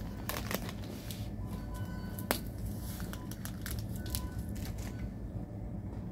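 Crinkles and sharp clicks from a paper sandwich wrapper and a paper coffee cup being handled at the table, with one loud click about two seconds in, over a low steady hum.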